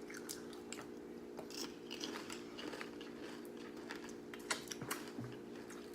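Chewing nachos made with Nacho Cheese Doritos: a string of irregular crisp crunches, over a steady low hum.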